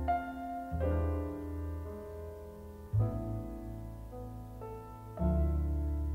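Background music: slow piano, with deep chords struck about every two seconds and left to ring out.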